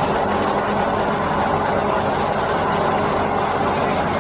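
QST3000D stone-quarrying chain saw running steadily with its chain cutting down into a stone block while squaring it: a continuous loud grinding over a low, even machine hum.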